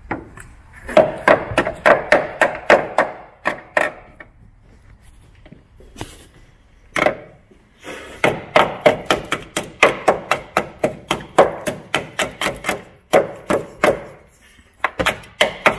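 Small hammer tapping and chipping at the rusted sill end plate of a Mk1 Mazda MX-5, in quick runs of knocks about three to four a second with short pauses. It is breaking away thick underseal and packed panel seal over rotten metal.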